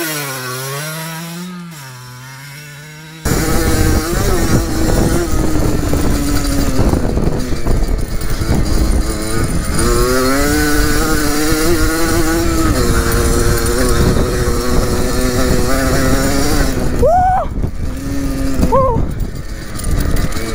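Yamaha DT50's small two-stroke single revving as the dirt bike is ridden, its pitch rising and falling with the throttle. From about three seconds in it is louder and mixed with wind rushing over the microphone, with two sharp revs near the end.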